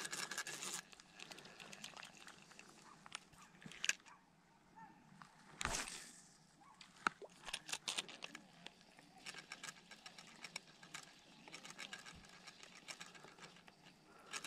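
Small spinning reel being handled and cranked, a run of faint clicks and ticks that thickens in the second half, with a brief louder rustle about halfway.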